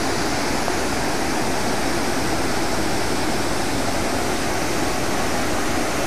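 A large waterfall in full flow: a steady, even rush of falling water.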